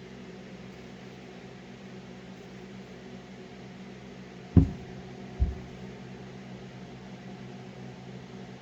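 A steady mechanical hum, like a fan or motor running, with two sharp knocks a little under a second apart about halfway through, the first the louder.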